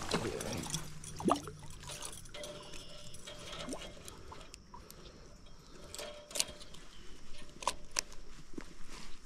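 Handling noises from fishing tackle worked by hand: a few short, sharp clicks and knocks over faint rustling.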